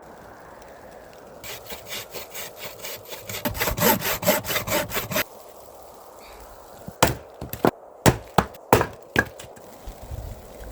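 Hand saw cutting through wood in quick, even strokes, about four or five a second, growing louder and faster before stopping suddenly about five seconds in. A few seconds later come about seven separate sharp cracks.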